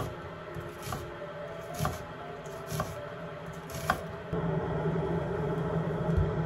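Chef's knife slicing a red onion on a wooden cutting board: the blade knocks on the board about once a second, five times. A steady low hum comes up in the second half and is the loudest sound by the end.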